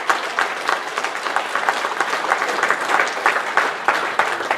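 Audience applauding: many hands clapping together at a steady pace.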